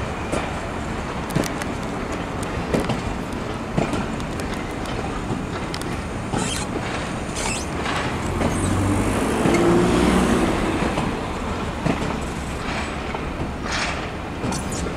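Passenger coaches rolling past at moderate speed, wheels clicking over rail joints about once a second over a steady rumble, which swells with a low hum for a few seconds in the middle.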